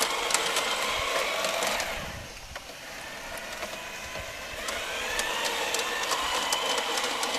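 Battery-powered G-scale model locomotive running along garden-railway track, its small electric motor whining, with light clicks. The sound fades for a couple of seconds and comes back, the whine rising in pitch.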